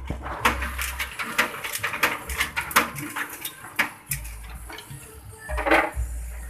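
Bamboo skewer sticks clattering and knocking as they pass through a bamboo-skewer shaving machine's rollers: irregular sharp clicks over a faint steady hum, with a louder clatter near the end.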